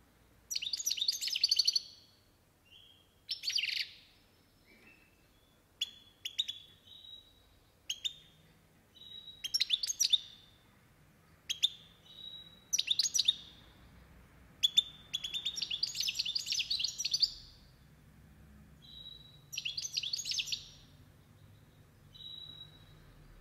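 European goldfinch singing: repeated phrases of rapid twittering and trills broken by short pauses and brief clear whistled notes, with one longer unbroken phrase about halfway through.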